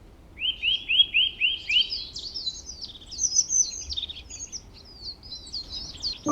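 Birds chirping: a run of about six quick repeated whistled notes in the first two seconds, then busy high twittering from several chirps overlapping.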